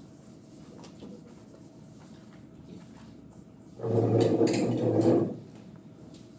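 Quiet room tone with a faint steady hum. About four seconds in, a low, indistinct voice sounds loudly for just over a second.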